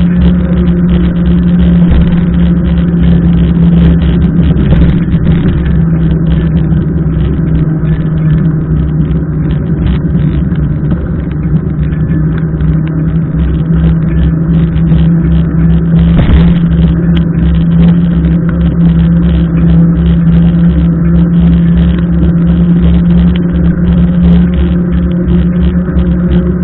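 Steady loud rumble of wind and rain on a bike-mounted action camera while riding a mountain bike along a wet road, with tyre noise and a constant low hum underneath.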